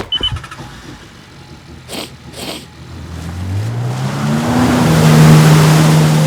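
Jet ski engine revving up, its pitch rising from about three seconds in and growing louder with a rushing hiss that peaks near the end. Two short swishes come just before it.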